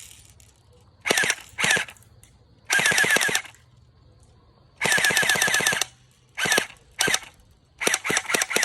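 Airsoft P90 firing on full auto in about seven separate bursts. Some are short and some run about a second, each a rapid string of shots.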